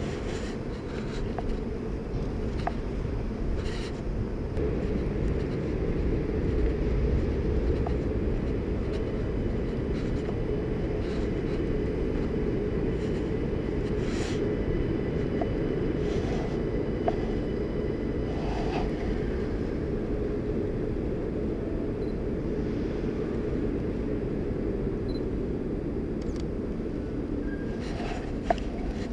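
Steady low rumbling noise, with a few short sharp clicks.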